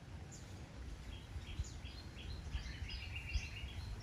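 Small birds chirping in short, high, repeated calls that grow busier in the second half. Beneath them are a few soft knocks of knives on a wooden cutting board.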